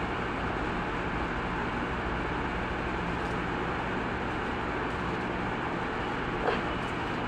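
Steady mechanical background noise with a low hum underneath, and one short click near the end.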